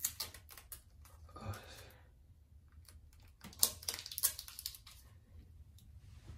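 Hands handling a rubber snake and tape against a plastic toilet lid: scratchy crackles and short clicks of tape being torn and pressed into place, loudest in two crackly spells a little after halfway.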